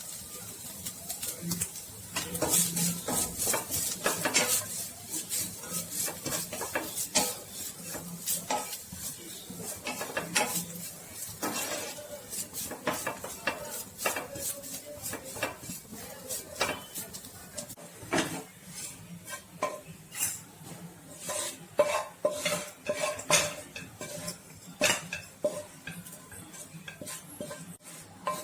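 A metal spoon scraping and clinking against a pan, stirring cashew nuts and coconut as they roast, over a light sizzle. The scrapes come irregularly, several a second.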